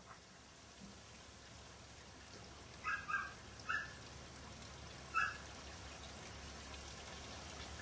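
A puppy giving four short, high-pitched yelps, three close together about three seconds in and one more about two seconds later, over a steady background hiss.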